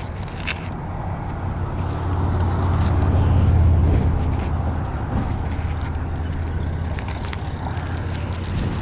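A low engine hum swells to its loudest about three and a half seconds in, then slowly fades, as when a motor vehicle passes by.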